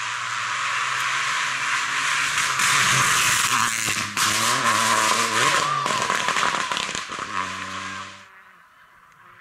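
Peugeot 208 Rally4 rally car approaching and passing flat out, its engine revving up and down through gear changes, with sharp crackles as it goes by. The sound cuts off abruptly a little after eight seconds in.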